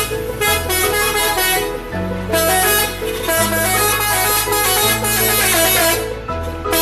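Telolet multi-tone horn playing a melody: quick runs of stepped horn notes over lower held notes, without a break.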